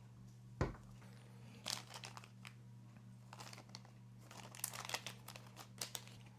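Small parts being handled by hand: a single knock about half a second in, then two spells of crinkling and light clicks, over a steady low electrical hum.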